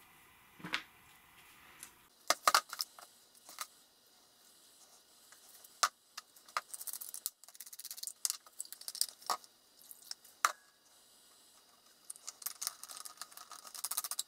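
Hands handling small craft parts on a work board: scattered light clicks and taps with soft rustling, and a quicker run of small clicks near the end.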